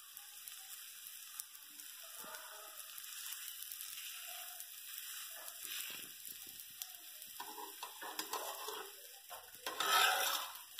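Stuffed radish paratha sizzling on a hot non-stick tawa, with light clicks of a metal spatula; near the end a louder scrape as the spatula slides under the paratha to lift it for flipping.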